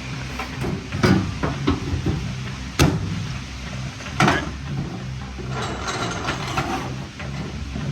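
Mechanical workshop clatter from tool work on a car chassis: three sharp knocks spread over the first half, with smaller clicks between them, then a second or so of rattling clatter, all over a steady low hum.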